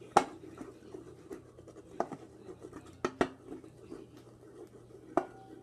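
A spoon stirring a thick soap-and-water mix in a bowl: a steady scraping, with about five sharp clinks of the spoon against the bowl.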